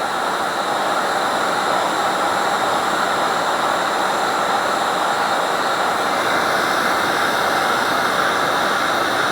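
Heat gun running steadily: an even rush of blown air with a faint steady whine, held on while plastic is softened for bending.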